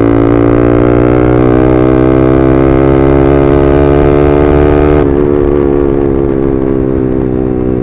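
Yamaha R15M's single-cylinder engine through an SC Project full-system exhaust, pulling under throttle with the revs climbing steadily. About five seconds in the throttle closes and the note drops back to a lower, easing drone.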